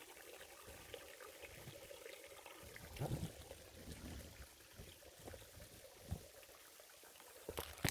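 Faint trickle of water from a small hillside stream, with a few soft thumps and some sharp clicks near the end.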